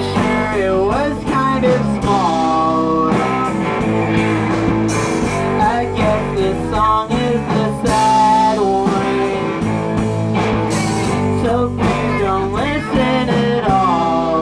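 Rock band playing live, guitar and drums with a gliding melody line over sustained chords.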